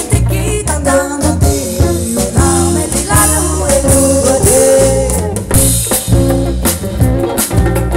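Live band music: women's voices singing at microphones over drum kit and guitars, with a steady beat.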